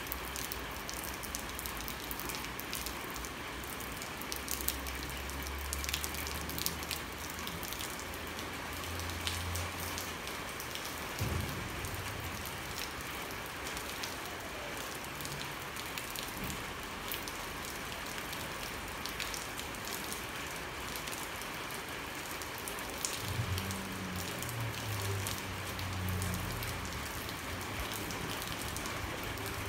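Steady rain falling on a street and roofs, with many scattered individual drops ticking. A faint low rumble comes and goes twice underneath.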